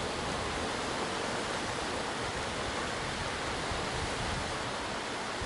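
A steady, even rushing noise that does not change, like surf or moving water, with no rhythm or breaks.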